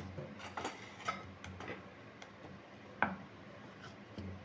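Scattered light taps and clicks of hands and a wooden rolling pin on a wooden pastry board as dough is dusted with flour and rolling begins, with one sharper knock about three seconds in.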